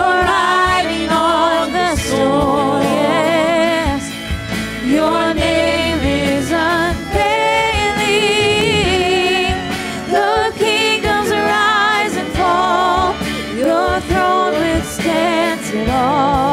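A worship band and several singers performing a contemporary worship song, the voices singing the melody with vibrato over continuous band accompaniment.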